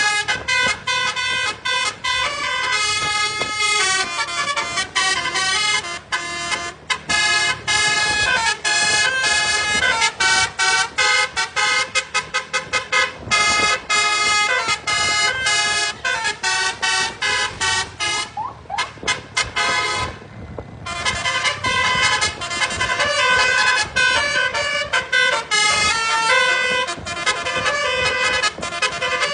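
Basuri telolet multi-tone bus horn playing a melody as a long run of short, rhythmic horn notes jumping between pitches, with a short gliding passage about two-thirds of the way through.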